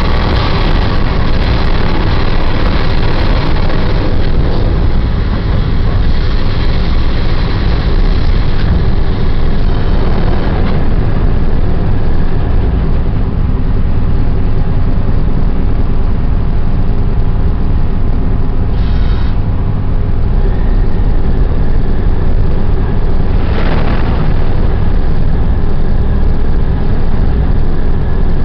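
Steady, loud low rumble of a ship's machinery, with faint steady hums above it.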